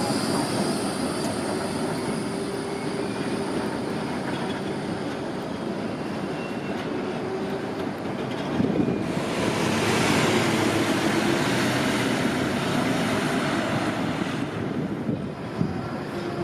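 City trams running on street rails: a steady rumble of wheels and running gear with a faint motor hum, swelling to a louder rushing hiss from about nine to fourteen seconds in.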